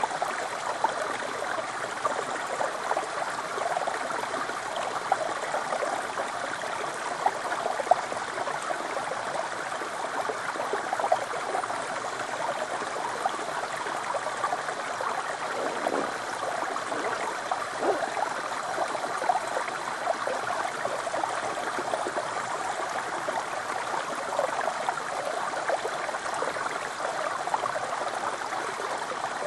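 Small mountain stream running in a thin sheet down a sloping rock slab: a steady rushing trickle of water.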